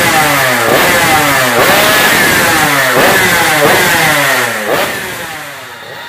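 Suzuki Satria Hiu two-stroke underbone race bike with a modified exhaust, revved in a series of quick blips, its pitch sweeping up with each blip; the sound fades out near the end.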